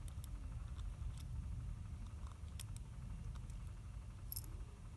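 Faint, scattered small clicks of a flathead screwdriver tip picking at a model locomotive's motor truck, fishing out the brush springs, over a low steady hum.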